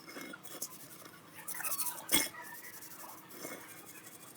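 Small metal parts clinking and rattling as they are handled, with a quick run of scraping strokes and then one sharper metallic knock about two seconds in.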